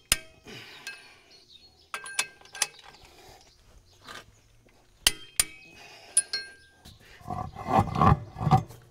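Metal tools and wheel hardware clinking against the tractor's steel hub and wheel spacer: a scatter of sharp single clinks, each with a short ring. Near the end comes a louder, rough, straining sound lasting about a second and a half as the heavy rear tractor tire is heaved onto the spacer.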